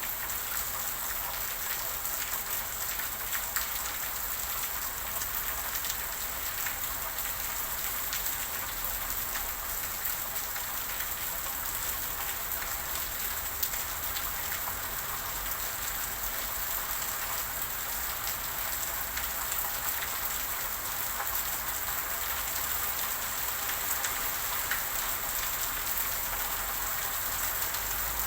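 Steady rain falling, a constant hiss of many drops with scattered individual drop ticks.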